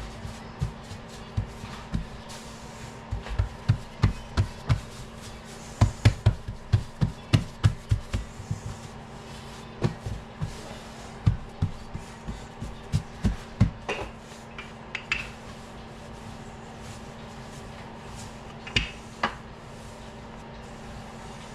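Irregular light knocks and thumps from kitchen work, in a quick run a few seconds in and sparser after, with a few sharper clicks near the end, over a steady low hum.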